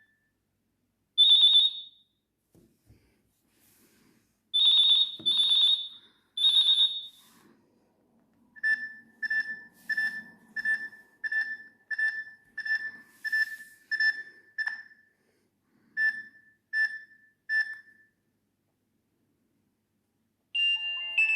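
Nokia 6600 ringtones playing through the phone's loudspeaker. First come a few short, high electronic beeps with pauses between them. Then a run of evenly spaced, lower electronic beeps at about two a second, which breaks off briefly and then stops. Near the end a new, chime-like ringtone starts.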